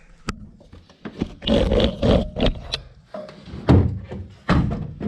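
Irregular knocks, clunks and clatter of gear being handled, starting with a sharp click and with the loudest thumps around the middle and near the end.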